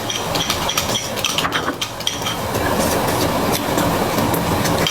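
Close-miked eating sounds: chewing and mouth noises with many small clicks of chopsticks and tableware against dishes, over a steady low rumble.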